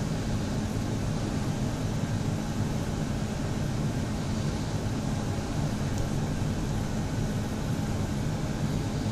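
Steady low hum with a constant hiss over it, unchanging throughout.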